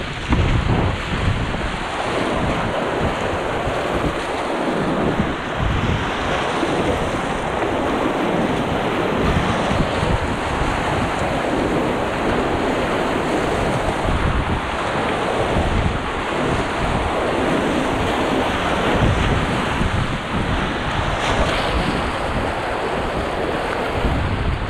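Whitewater rapids rushing and splashing around a small inflatable packraft, with wind buffeting the microphone in low rumbles.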